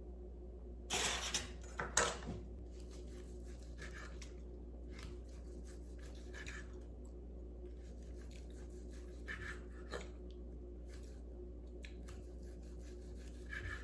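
Short scraping and rubbing handling sounds, the loudest two about a second and two seconds in, with scattered fainter scratches, over a steady low hum.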